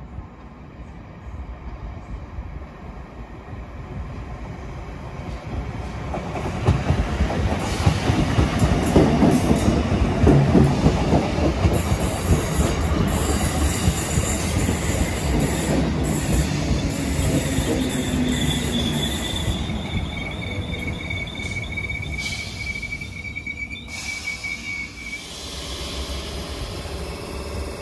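Class 320 electric multiple unit train running into the station. The rumble of wheels on rail builds to a loud peak, then a steady high-pitched squeal rides over it for several seconds before it eases off.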